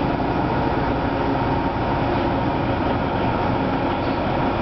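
Interior of a 1997 Orion V transit bus in motion: steady engine, drivetrain and road noise, with a faint steady whine.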